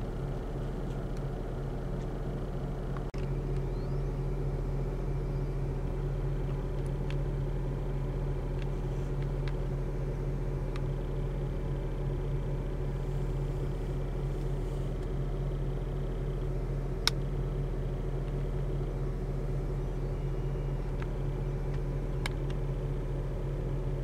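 Steady low mechanical hum from a running machine, constant in pitch, with a brief dropout about three seconds in and a single sharp click about two-thirds of the way through.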